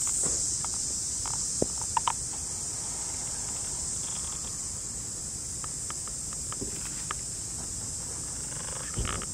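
A steady, high-pitched chorus of insects chirring, with scattered short clicks and crackles of dry leaf litter as the monkeys shift, and a louder rustle near the end.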